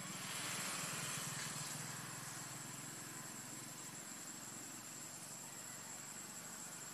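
Steady high-pitched insect drone over a low steady hum like a distant idling engine, with a swell of leaf rustling in the first two seconds as the macaque pulls at the foliage.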